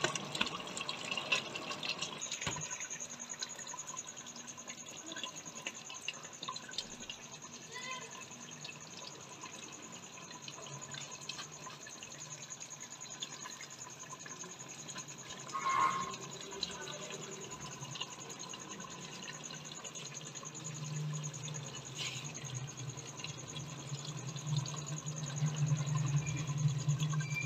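Chicken and tindi (apple gourd) curry simmering in a pot while a steel ladle stirs through it, scraping and knocking against the pot now and then, with one louder clink about halfway through.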